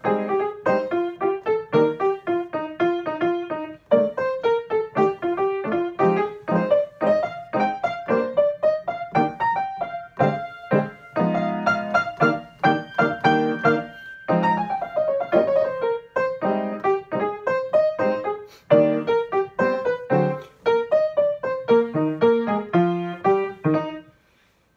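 Grand piano played solo: a melody line over chords in the left hand, the playing stopping abruptly just before the end.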